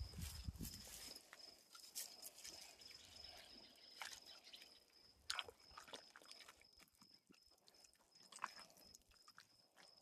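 Faint squelching and crackling of wet clay-and-straw mud being pressed and worked by hand, in scattered small clicks; the mix is a little sloppy.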